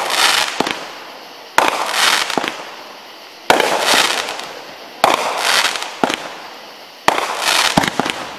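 Fireworks going off about every one and a half to two seconds, four times: each a sudden bang followed by a hissing spray of sound that fades away.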